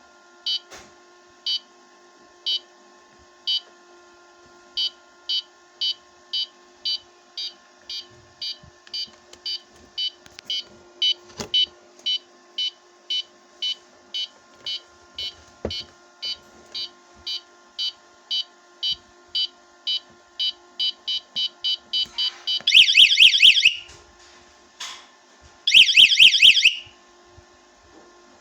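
Electronic airsoft bomb prop counting down: short high beeps, about one a second at first, come faster and faster until nearly continuous. The prop then sounds its alarm in loud warbling bursts of a second or so, the sign that the timer has run out and the 'bomb' has gone off.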